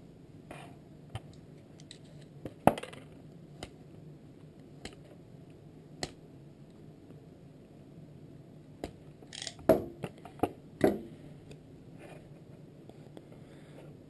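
Scattered small clicks and taps of hands handling wires and a roll of vinyl electrical tape on a tabletop, with a short cluster of louder noises about two-thirds of the way in as tape is pulled off the roll and wrapped around a wire joint. A faint steady low hum lies underneath.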